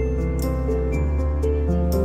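Soft background music with held notes over a steady low bass, and faint regular ticks of light percussion.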